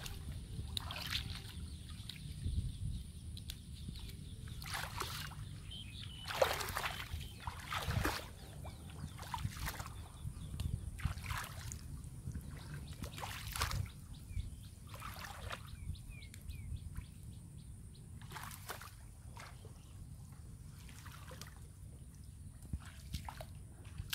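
Shallow muddy water splashing and sloshing in short, irregular bursts every second or two as feet wade through it and plants are pulled up, over a steady low rumble.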